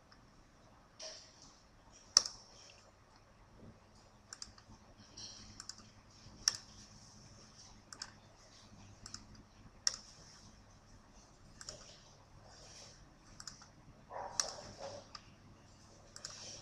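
Irregular computer mouse clicks, roughly one a second, the loudest about two seconds in and a short flurry near the end, over a faint steady low hum.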